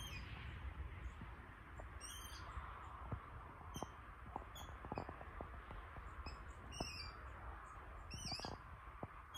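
Water rail calling: short, high calls repeated at irregular intervals, about one every second or two, over a steady low background rumble.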